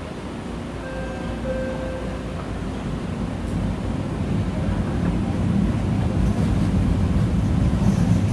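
Metro station ambience: a train's low rumble building steadily louder as it approaches.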